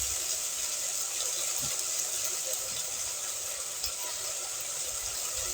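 Okra and onion sautéing in a pot, a steady frying sizzle.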